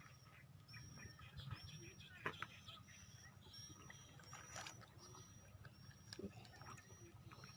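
Faint outdoor quiet with a short, high chirp repeating about once a second, typical of a small bird calling, over a low steady hum.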